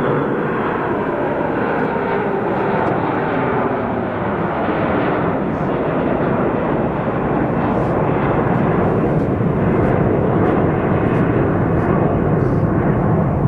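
Twin jet engines of a Boeing 767 airliner on its landing rollout, making a loud, steady roar as reverse thrust blows up the runway snow.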